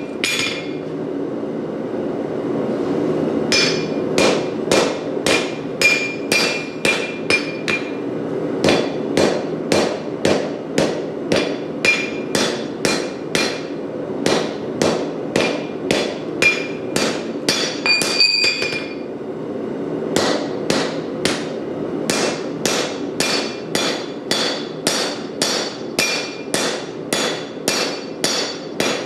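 Hammer forging a hot Damascus steel billet on an anvil, about two blows a second with two short pauses, some blows leaving a brief anvil ring, over the steady sound of a propane forge running.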